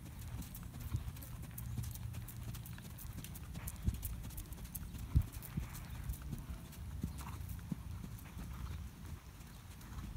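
Hoofbeats of a horse trotting under saddle on a sand arena, dull knocks on the soft footing, one louder about five seconds in, over a steady low rumble.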